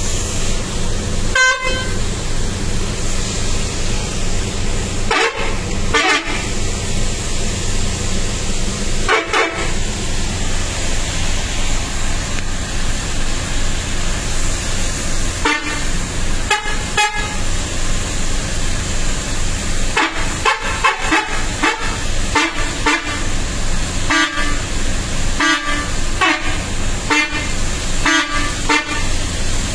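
Multi-tone telolet bus horn played by hand in short toots: scattered single blasts at first, then a quick run of toots in the second half, over steady background noise.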